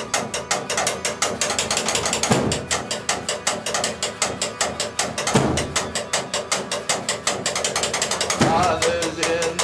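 Fast, even ratchet-like clicking, about eight clicks a second, made by hand against the elevator wall as a rhythm for a song, with a heavier low thump about every three seconds. A voice starts singing near the end.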